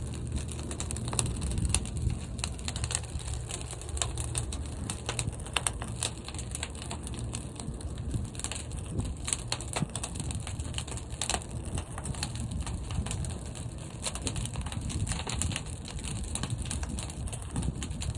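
Fire burning in a large kiln: a steady low rumble with frequent, irregular sharp crackles.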